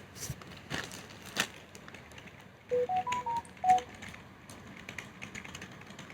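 Computer keyboard keys being pressed, scattered individual clicks. About three seconds in, a short run of electronic beeps steps up and then back down in pitch, louder than the key clicks.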